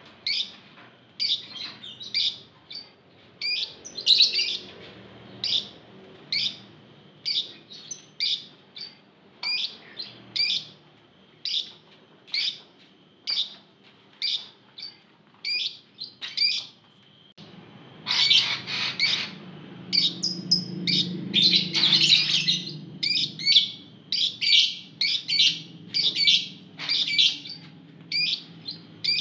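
A group of Fischer's lovebirds calling in a cage: short, sharp, high chirps about twice a second, overlapping and louder for several seconds past the middle. A low hum comes in partway through.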